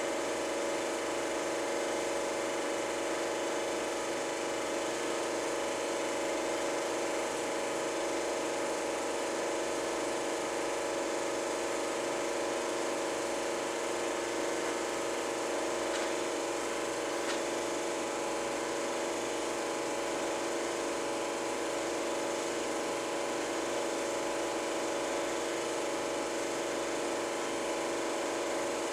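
Super 8 film projector running, a steady motor whir that holds at an even level without a break.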